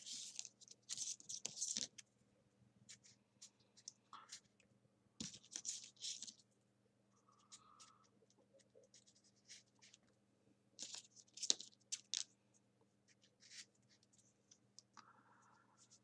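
Folded printer-paper origami units rustling and scraping as they are pushed into place on a paper model, in three short bursts with small clicks between.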